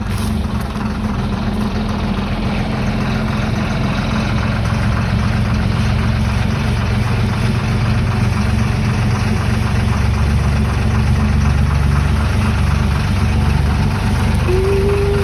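An engine idling steadily: a low running hum with a fast, even ticking over it, growing a little louder past the middle.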